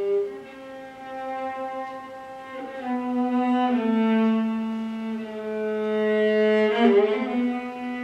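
Violin playing a slow melody of long, held bowed notes. It moves to a new pitch about a second in, again near three and four seconds, and swells to a louder, rougher note change around seven seconds.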